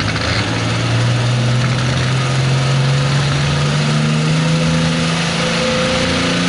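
Diesel engine of a Pro Farm pulling tractor running at the line, hooked to the sled. Its pitch climbs slowly and steadily as the revs are brought up before the pull.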